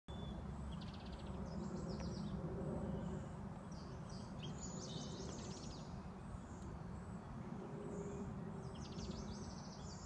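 Small songbirds singing short, fast trilled phrases several times over a steady low background rumble.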